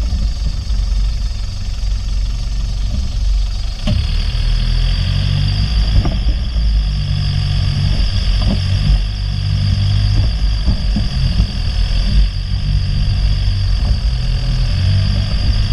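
Off-road jeep's engine running as it drives over rough dirt ground, with a few sharp knocks as it jolts over bumps.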